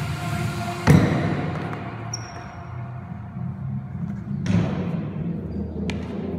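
Heavy thuds of a gym workout on a concrete floor, echoing in a large hall: one about a second in, another past the middle, and a loud one at the very end.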